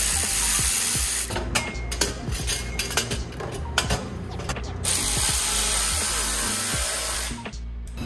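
Ratchet wrench working bolts on a car's exhaust: two long spells of running, with sharp clicks and knocks between them.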